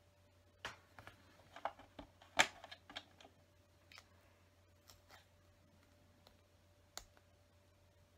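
LEGO bricks clicking and tapping as small plastic pieces are handled and pressed together. A quick run of sharp clicks comes in the first three seconds, then a few scattered single clicks.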